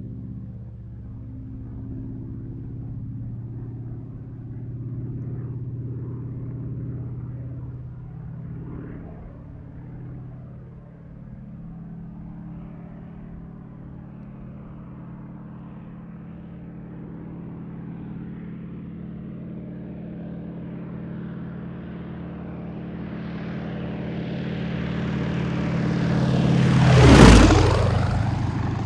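Airplane flying fast past: its engine drone builds slowly as it approaches, peaks sharply and loudly as it passes close about 27 seconds in, then drops away.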